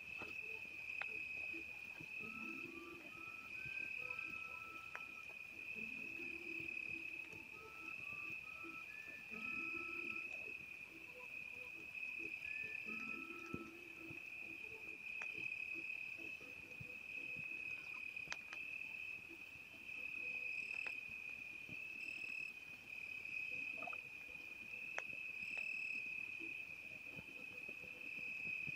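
Steady, unbroken high-pitched trilling of crickets at night, with low frog calls recurring every few seconds through the first half and scattered sharp pops from a campfire.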